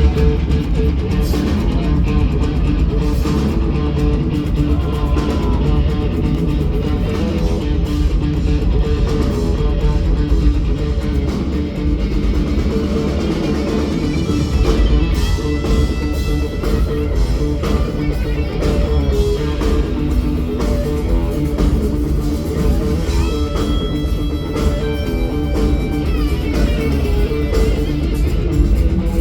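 Rock band playing live: electric guitars and bass guitar.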